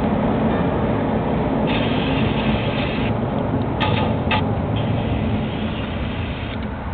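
Steady road and engine noise inside the cabin of a moving Jeep, with two sharp clicks about four seconds in.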